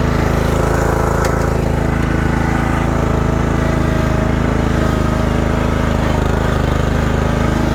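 Ariens Mini Zoom 1434 zero-turn mower's 14.5 horsepower Briggs & Stratton engine running steadily and evenly, with no vibration or misbehaviour.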